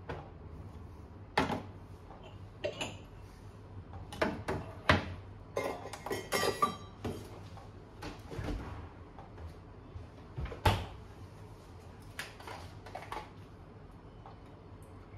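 Espresso cup, scale and stainless steel milk pitcher set down on a stainless steel counter and espresso machine drip tray: a string of separate clinks and knocks, with the loudest about a third of the way in and again about two-thirds in, over a low steady hum.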